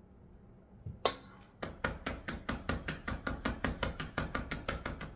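A plastic container of whipped butter rapped quickly and repeatedly on a wooden cutting board to settle and pack the butter down. There is one sharp knock about a second in, then an even run of knocks at about six a second.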